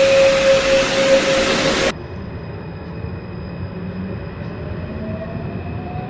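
Mexico City Metro trains' traction drives pulling away. First comes a chopper-controlled train with IGBT electronics, giving a loud steady whine. After an abrupt cut about two seconds in, a quieter recording of the 1995 Line A train follows, with thin steady high tones and a whine slowly rising in pitch as it gathers speed.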